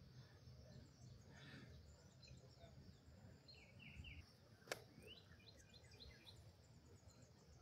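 Faint birds chirping in short runs of quick notes over a near-silent background, with one sharp click a little before the five-second mark.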